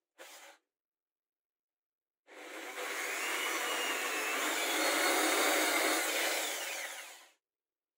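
Hand-held electric drill running as it bores into a wooden disc. It runs steadily for about five seconds with a faint high whine, then stops suddenly.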